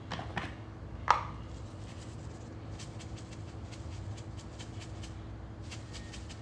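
A seasoning container being handled and shaken over a bowl of ground beef while dried parsley flakes are sprinkled in. There is a sharp knock about a second in, then many faint light ticks, over a steady low hum.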